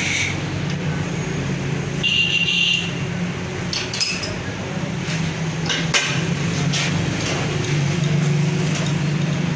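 Sharp metal clinks, a couple about four seconds in and another about six seconds in, as a chuck key works a lathe's three-jaw chuck. A steady low machine hum runs underneath.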